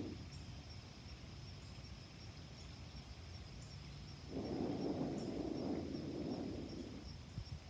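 Outdoor ambience: a steady high insect trill with faint regular ticks, over a low hum. About halfway through, a soft low rushing noise rises for about three seconds and fades.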